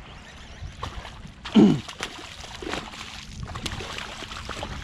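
Water lapping and sloshing around a small fishing boat, with a steady low rumble and a few sharp clicks. About a second and a half in there is a short grunt that falls in pitch.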